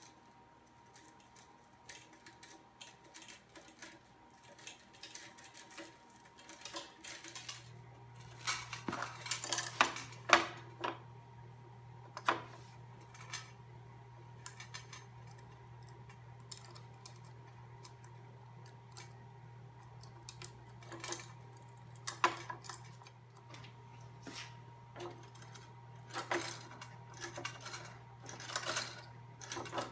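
Metal parts and tools clinking and clattering as a Cobra Class 3 sewing machine is assembled, in irregular bursts. A steady low hum comes in about seven seconds in and keeps going.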